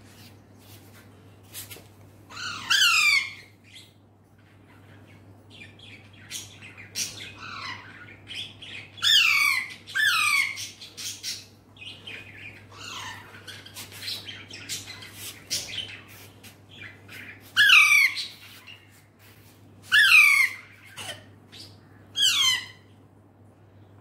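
Alexandrine parakeet squawking: a string of loud, harsh calls, each sweeping downward in pitch, about a dozen in all, some coming in quick pairs.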